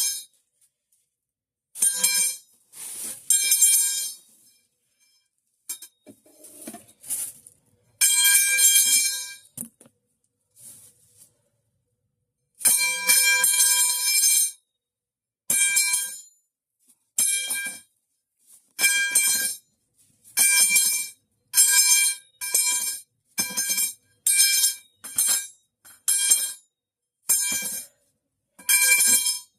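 The metal pipe falling sound effect: a metal pipe clanging again and again, each strike ringing with a bright, bell-like tone. A pause of a couple of seconds comes about ten seconds in, after which the clangs come roughly once a second.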